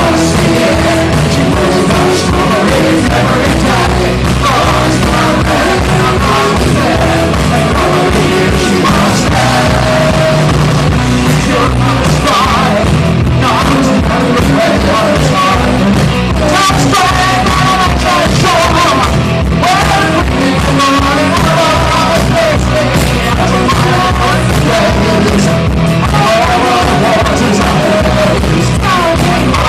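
Punk band playing live, with drums, electric guitars and a lead voice singing over them.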